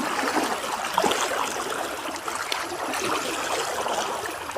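Floodwater flowing steadily, trickling and gurgling, with a few small splashes.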